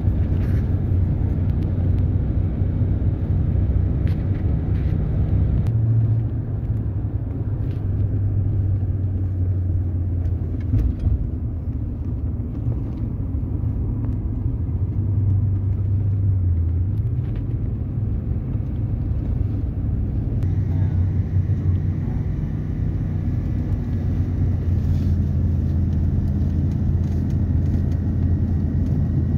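Car driving at highway speed, heard from inside the cabin: a steady low rumble of engine and tyre noise, with an engine hum that shifts in pitch a few times.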